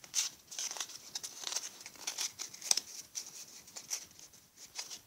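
Pokémon trading cards handled and slid against one another in the hands: a run of quick, irregular dry rustles and flicks.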